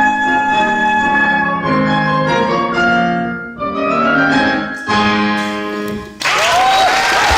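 Live acoustic music: a sustained melody line over piano accompaniment plays its closing phrases and final chord, stopping about six seconds in. Audience applause breaks out right after.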